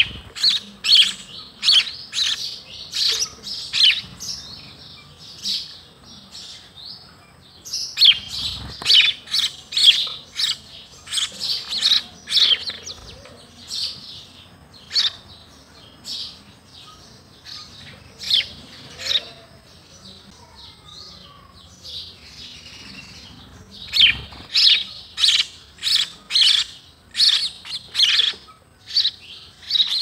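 House sparrows chirping: short, sharp chirps repeated in quick runs, in several bouts with lulls of a few seconds between them.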